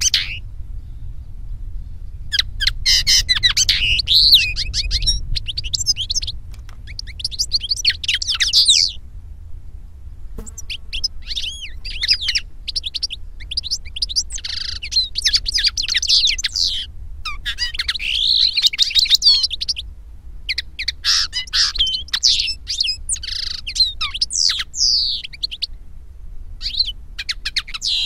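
European goldfinch and common linnet song: long phrases of fast, high twittering and trills, broken by pauses of a second or two, over a steady low hum.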